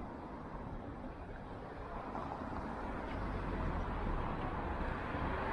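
Steady city street noise with a low traffic rumble that grows stronger near the end.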